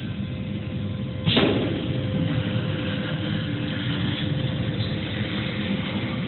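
Automatic CNC spray-painting machine running with a steady mechanical hum, broken about a second in by one sudden sharp burst of noise that dies away quickly.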